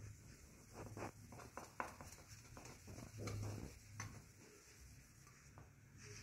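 Faint, irregular rubbing and scratching of a cotton ball working metal polish into a metal vehicle part, in short scrubbing strokes.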